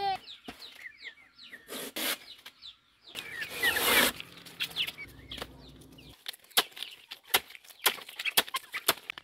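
Chickens clucking while a knife slices into a banana stem with a scraping rush. From about six seconds in, a run of sharp knocks, two to three a second, as the knife chops the banana stem on a hard surface.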